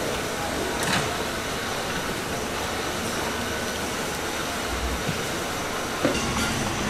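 Steady background noise of a busy street market, an even hiss-like wash with traffic in it, with a single sharp click about a second in.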